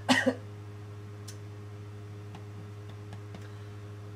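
A sick man coughs once, short and hard, right at the start; a coughing fit from a sore throat. After it there is only a steady low hum, with a few faint ticks.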